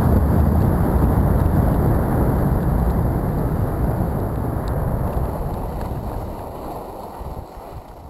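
Wind rushing over the microphone of a camera carried by a skier on a downhill run, with the scrape of skis on snow. It fades toward the end.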